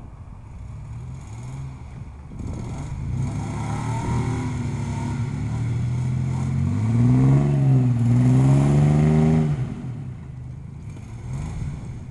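1994 Ford Explorer's 4.0-litre V6 on its stock exhaust revving hard while the SUV is stuck in mud. The revs climb from about two seconds in, rise and dip at their loudest, then drop back to a lower run near ten seconds.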